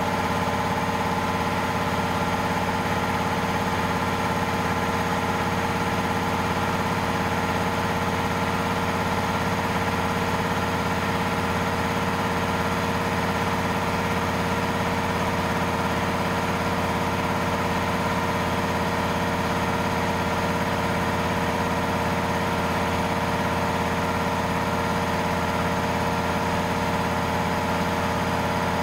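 Walter GK 880-5.5/500 P piston air compressor, an electric motor driving the pump, running steadily and without a break as it pumps its 500-litre tank up to pressure.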